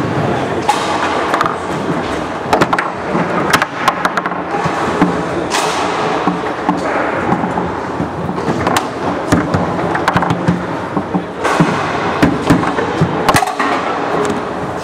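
Foosball being played on a competition table: a rapid, irregular run of sharp clacks and knocks from the ball striking the plastic men and the table walls, and the rods sliding and banging.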